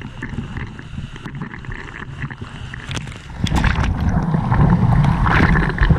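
Sea water lapping against a surfboard, close to a camera at water level; about three and a half seconds in, the whitewater of a breaking wave rushes over the board, much louder and splashing.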